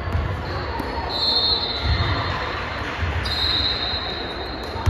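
Busy basketball gym ambience: a reverberant hall full of distant chatter and activity, with low thuds on and off and high-pitched squeals that each last about a second, twice.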